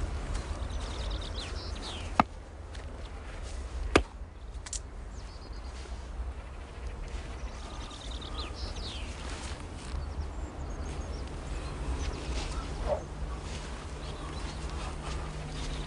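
Two sharp knocks about two seconds apart from a cricket ball being played off the bat, with birds chirping in short repeated falling notes and a steady low rumble throughout.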